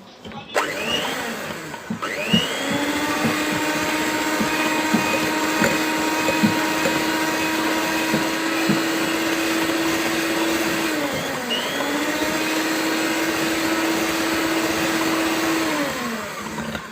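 Electric mixer beating oil and milk in a bowl. The motor starts about half a second in and rises to a steady whine, dips and picks up again about two-thirds through, then winds down near the end. Short clicks from the beaters against the bowl run throughout.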